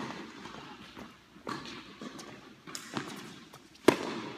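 Tennis rally on an indoor court: the ball is struck and bounces back and forth, a knock every second or so, with the loudest, sharpest pop of a racket hitting the ball close by near the end.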